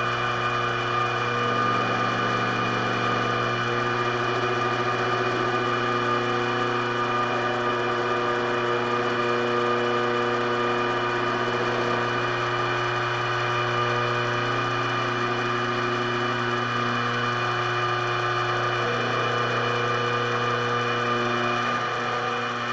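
Pantograph mill's high-speed spindle running steadily, its small cutter routing a block of wood printing type. It makes a steady machine whine of several held tones, a few of which shift slightly now and then.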